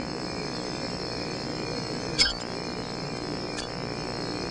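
Two sharp clicks from a cigarette lighter being handled, a loud one about two seconds in and a fainter one a second and a half later, over a steady hum and a high, even, insect-like drone.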